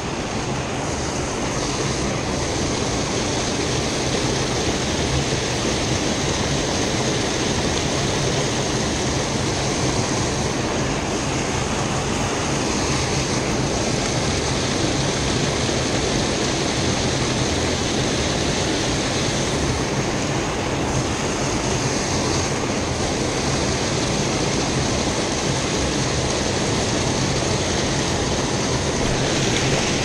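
Fast river rapids rushing steadily close to the microphone, a continuous even wash of water noise.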